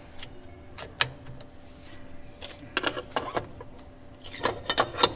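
Light clicks and knocks of an aluminium mould and small metal parts being handled on a screen laminator's steel work plate: one about a second in, a cluster around three seconds in, and another near the end, which is the loudest. A faint steady hum underneath.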